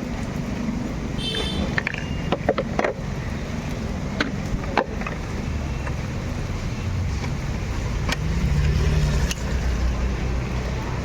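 Low, steady motor-vehicle engine rumble that swells briefly about two-thirds of the way in, with several sharp clicks and knocks over it.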